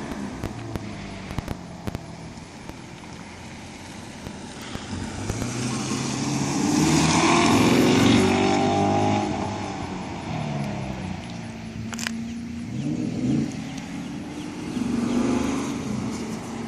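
Chevrolet Corvette Stingray's V8 engine revving up and down through an autocross course, rising and falling in pitch as the car brakes and accelerates. It grows loudest about halfway through as the car passes nearest, then fades as it drives away.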